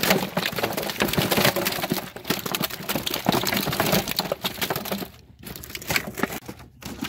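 Live carp thrashing and slapping against each other and the walls of a plastic drum as the fish are handled and tipped out. It is a dense run of wet slaps and knocks that thins out about five seconds in.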